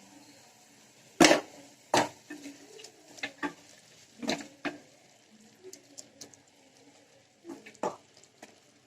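A spoon stirring chilli garlic mushroom in a pan, with irregular sharp knocks and scrapes of the spoon against the pan.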